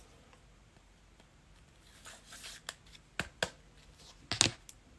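Trading cards being handled and flipped: a soft swish about two seconds in, then a few sharp clicks and snaps of card stock, the loudest near the end.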